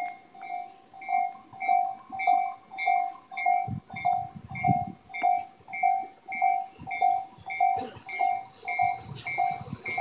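Japanese level-crossing warning bell ringing steadily at a little under two dings a second. In the last couple of seconds an approaching train adds a high, slowly rising whine.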